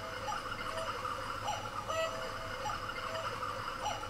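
Cuckoo clock calling the hour, its two-note "cuck-oo" repeated about four times, just over a second apart.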